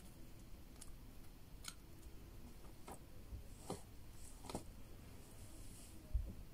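Faint scattered clicks and light rustles, about one a second, as a Eurasian red squirrel nibbles and handles a piece of porcini mushroom. A soft thump comes shortly before the end.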